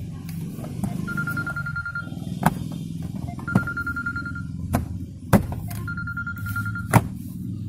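A phone ringing: one high ringtone, about a second long, sounds three times. Between the rings come sharp clicks and knocks as the plastic dashboard trim around the instrument cluster is pressed back into place.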